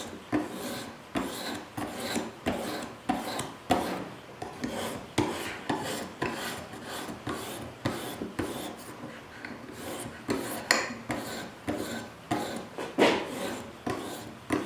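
Water-lubricated 400-grit sharpening stone on a guided-rod knife sharpener rasping back and forth along a knife edge in short, uneven strokes, about one to two a second.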